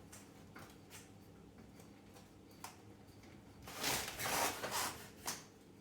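Hands handling a washing machine hose's screw-on fitting: a few faint light clicks, then about a second of rustling and scraping about four seconds in, with one more click after it.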